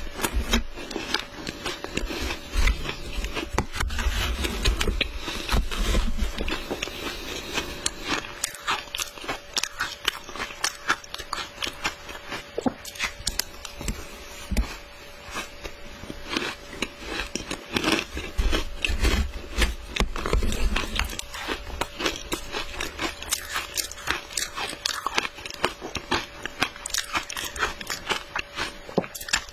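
Matcha-dusted shaved ice being bitten and chewed: a dense run of crunching and crackling from the mouth, with a faint steady hum underneath.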